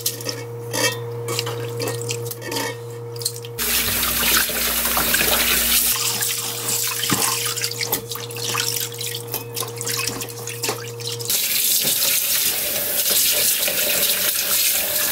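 Mulberry leaves being swished and squeezed by hand in water in a stainless steel bowl in a sink, with a steady low hum underneath. Tap water runs into the bowl briefly a few seconds in and again, steadily, for the last few seconds.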